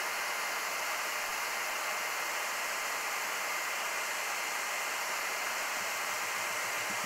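Steady, even hiss with a faint high steady tone, with no clicks or knocks standing out from the soldering at hand.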